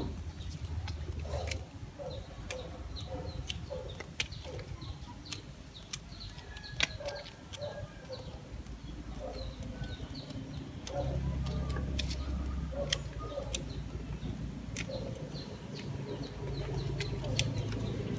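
Small pruning shears snipping the leaves and twigs of a red-bud banyan bonsai, giving sharp clicks at irregular intervals, a dozen or more in all. Short bird calls repeat in the background, and a low rumble rises about eleven seconds in.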